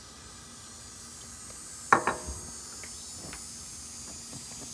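Outdoor gas ring burner hissing steadily under a stainless steel kadai of oil as it heats. A single sharp metallic clank about two seconds in, followed by a few lighter ticks.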